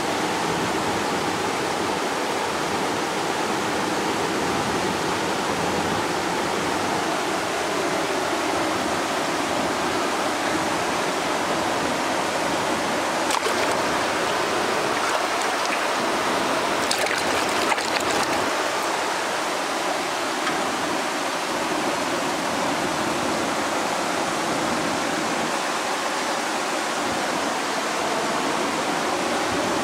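Steady rushing of river water falling over a weir, with a few brief clicks about halfway through.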